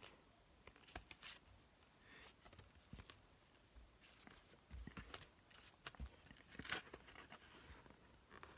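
Faint handling sounds from a CD case being turned over and opened: scattered light clicks and rustles.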